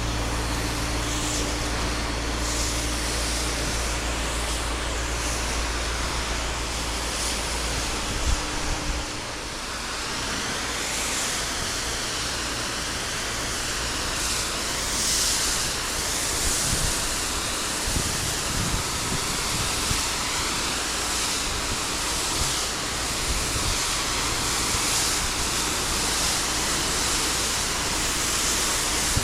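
Pressure-washing equipment at work: a steady engine hum for the first several seconds, then from about ten seconds in a broad hiss of water spray with occasional small knocks.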